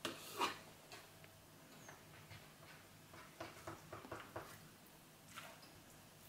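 Knife slicing raw chicken breast on a plastic cutting board: faint taps and scrapes of the blade on the board and soft wet handling of the meat, with a cluster of small taps a little past the middle.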